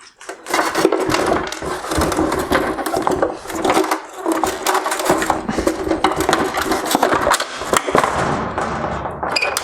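Plastic headlight lens being worked off the housing: dense crackling, snapping and scraping of plastic and sealant, with a low hum that comes and goes.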